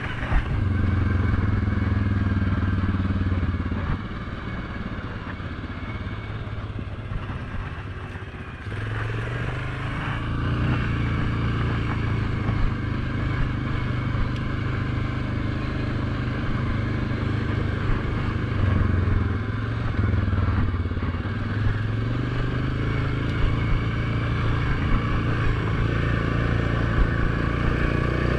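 ATV engine running under way on a dirt trail. It eases off at about four seconds and pulls again from about nine seconds, with a few short knocks later on.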